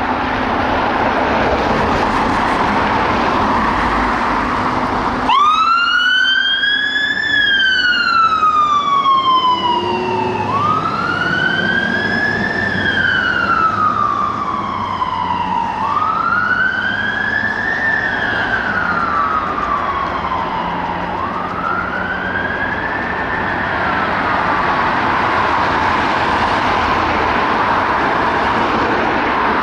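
Volvo FL fire engine's siren switching on after about five seconds of vehicle noise and sounding a slow wail that rises and falls about every five seconds, four times. The wail grows fainter near the end as the engine moves away.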